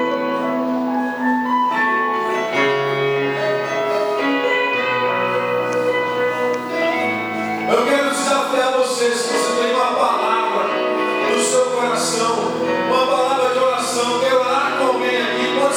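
Church worship music: held keyboard chords that change every second or two, with a voice singing over them from about eight seconds in and cymbals washing in several times.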